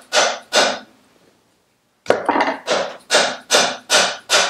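Loud, repeated hammer blows on the end of a Vespa PX gearbox output shaft, driving the tight shaft out of its bearing in the engine casing. Two blows, a break of about a second, then a steady run of blows at about two to three a second.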